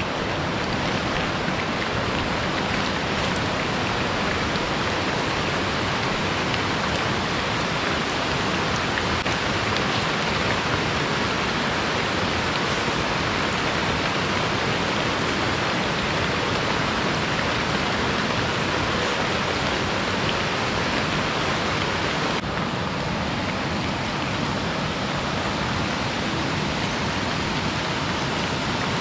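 Steady rain falling, heard as a dense, even hiss that does not let up; the higher part of the hiss dulls a little about 22 seconds in.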